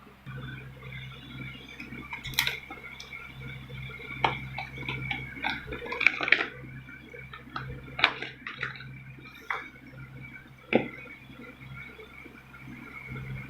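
Scattered clicks, taps and light clatter of a smartphone's box and accessories being handled during unboxing, over a steady low background hum.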